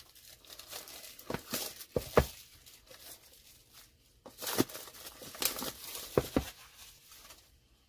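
Plastic packaging sleeves crinkling and tearing as two small cardboard boxes are pulled out of them, with short knocks as the boxes are handled and set down on a cutting mat. The sounds come in a string of brief rustles and taps and stop just before the end.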